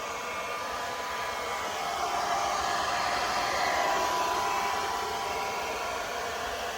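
Hand-held hair dryer blowing steadily with a faint whine, heating tail light tint film so it softens and lays down without bubbles.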